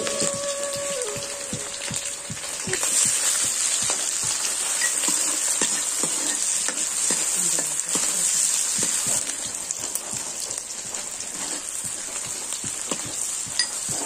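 Sliced onions sizzling as they fry in hot oil in a black iron kadai, with a steady high hiss and a metal ladle stirring and clicking against the pan.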